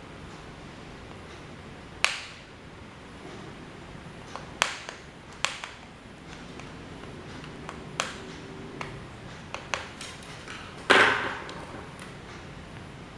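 Scattered sharp metallic taps and clinks from old desk fan parts and tools being handled, the loudest about eleven seconds in with a short ring.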